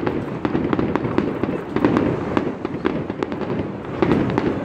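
Aerial fireworks bursting: an irregular run of bangs and crackles, several a second.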